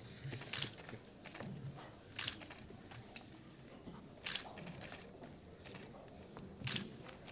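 Paper documents being signed and handled at a table: a few short, sharp rustles and clicks, about five, over a faint room murmur.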